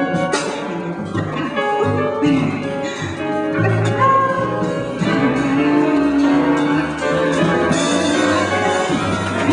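Live improvised jazz: several instruments playing together, with low bass notes underneath.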